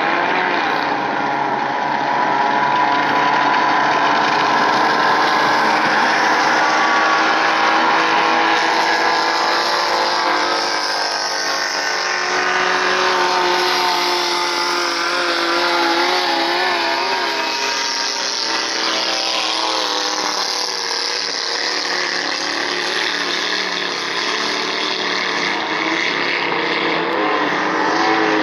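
Several racing speedboats' engines running hard at high revs, their pitch wavering and shifting as the boats throttle through turns and pass one another.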